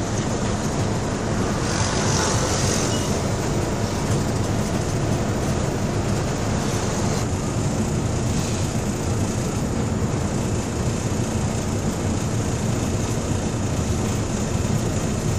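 A bus's engine and road noise heard from inside the cabin: a steady drone and rumble while it drives at speed.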